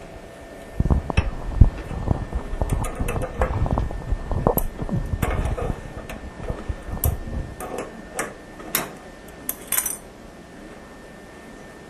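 Hand tools clinking and knocking against metal fittings in irregular bursts as the toilet's water supply line is worked loose and disconnected; the clatter stops near the end.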